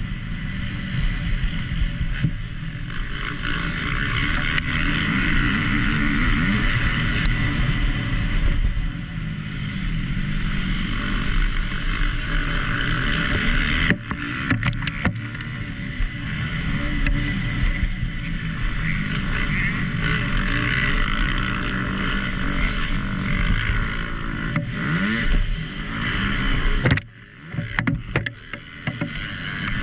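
2019 KTM SX-F 250 four-stroke single-cylinder motocross engine being ridden hard, the revs rising and falling as the throttle opens and closes, with wind noise on the microphone. A few sharp knocks come about halfway through, and the sound drops sharply for about a second near the end.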